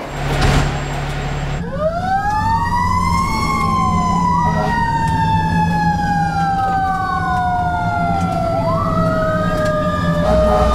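Fire engine siren wailing on a Code 3 run, its pitch sweeping slowly up and down every few seconds, with the truck's engine running underneath. It begins with a brief loud rush of noise before the siren comes in.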